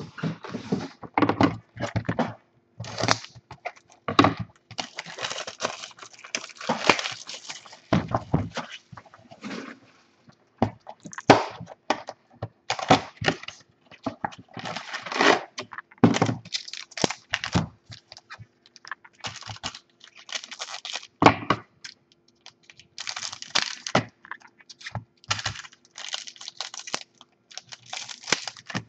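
Wrapped trading card packs and their cardboard box handled on a wooden table: irregular rustling and crinkling of the wrappers, with occasional knocks as packs are set down.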